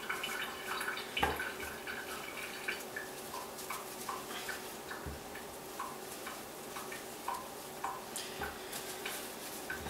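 Paper towel rustling as red potatoes are rubbed dry by hand, with three soft thumps as the potatoes are set down one by one on a cutting board.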